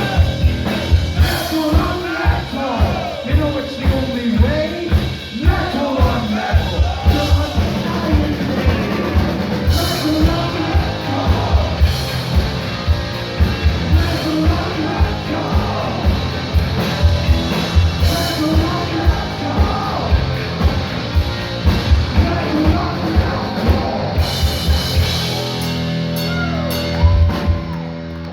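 Heavy metal band playing live: loud rock music with sung vocals over a driving drum kit, with a rapid, steady bass drum beat.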